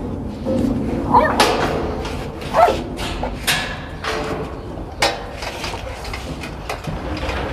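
Rottweiler giving two short whines, about one and two and a half seconds in, as its steel food bowl is set down in the metal cage, with several clanks of the bowl and cage.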